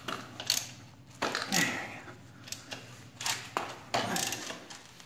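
Ratchet wrench clicking in short, uneven runs as a 17 mm socket works loose the tight lower mounting bolt of a Honda Grom's rear shock.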